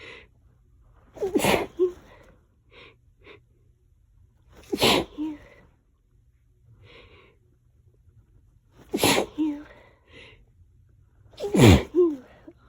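A person sneezing four times in a row, about one every three to four seconds, during an ongoing allergy sneezing fit.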